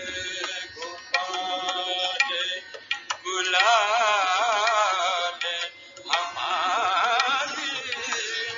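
Recorded Hindustani classical male singing of a haveli sangeet devotional pad, accompanied by tabla. Tabla strokes lead in, and from about three seconds in the voice sings long, wavering, ornamented notes, with a brief break near six seconds.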